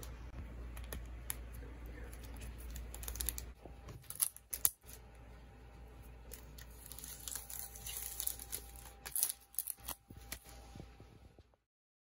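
Thin clear plastic wrapping being peeled and pulled off a small cardboard product box, with scattered faint crinkles and clicks over a low steady hum, busiest about four seconds in and again near nine seconds; the sound cuts out just before the end.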